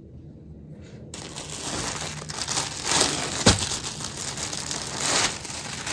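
Clear plastic packaging bag crinkling and rustling as it is handled, starting about a second in, with a sharp click midway.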